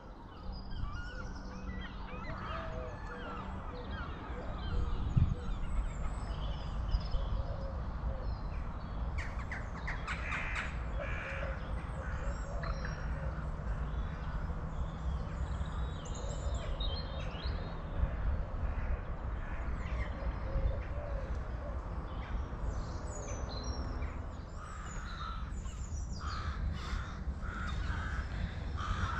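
Birds calling and chirping around a pond, many short calls scattered throughout, over a steady low rumble.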